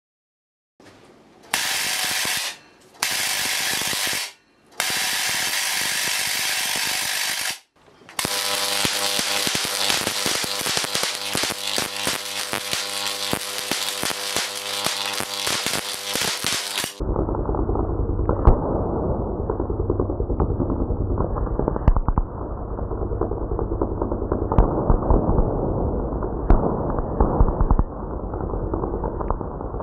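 High-voltage arcs from a 400,000-volt supply crackling onto a foil-and-perspex plate capacitor. The first three arcs come as short bursts with brief gaps. The arcing then runs continuously with a steady buzz under the crackle, and about halfway through it turns muffled, with irregular sharper snaps.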